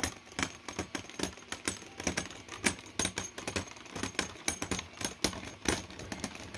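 Two spinning Beyblade Burst tops clashing in a plastic stadium, giving rapid, irregular clacks, several a second.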